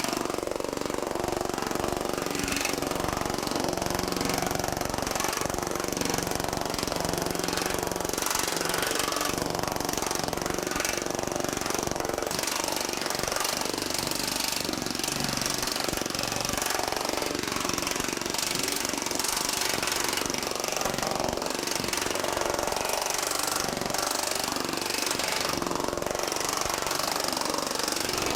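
TM Technologies pneumatic power hammer hammering steadily and without a break. It is fitted with aluminum shrinking dies and is shrinking the flange of 1100 .050 aluminum sheet.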